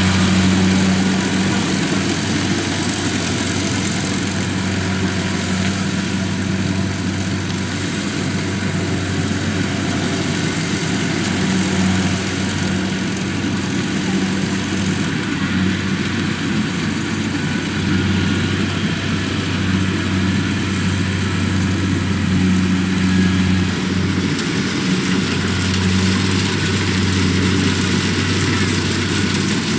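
Kubota DC-70 combine harvester's diesel engine running steadily with a continuous low hum.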